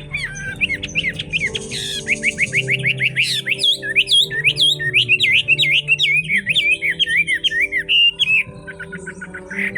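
Chinese hwamei singing a fast, varied song of rapid repeated whistled notes, switching to a new phrase every second or so, with a brief lull near the end.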